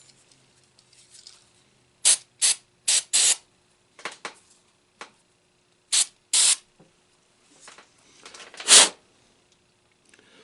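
Aerosol can of electrical contact cleaner sprayed into an old radio's contacts in about seven short hissing bursts, the last near the end the loudest.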